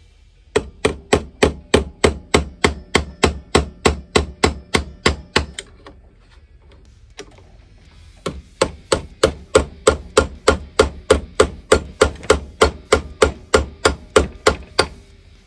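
Rapid hammer blows on a tool wedged against the seized cam of a Ford Model A distributor held in a vise, about four a second. The blows come in two long runs with a short pause between, as the stuck cam is being driven loose.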